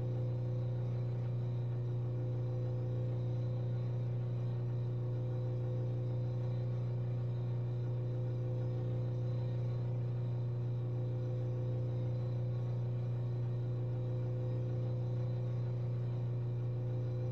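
Steady low electrical hum, with fainter higher tones held steady above it, unchanging throughout.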